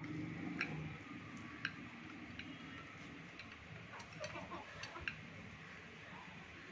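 Hens pecking grain off a concrete floor: scattered, irregular sharp ticks of beaks striking the hard ground, a few each second.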